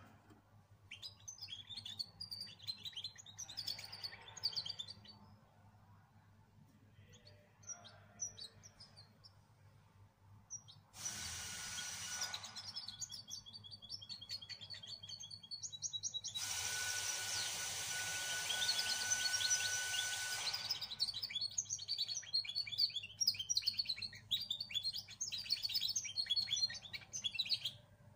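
A young two-month-old cage songbird singing a twittering song of quick high chirps, densest near the end. Twice in the middle its song is covered by a loud steady hiss.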